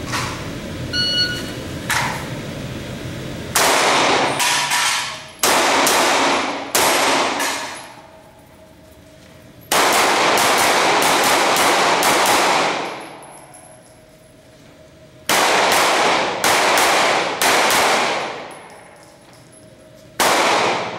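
Semi-automatic pistol firing in rapid strings of shots with short pauses between strings, each shot echoing heavily off the walls of the indoor range. A short electronic beep about a second in, typical of a shot timer's start signal, comes before the first string.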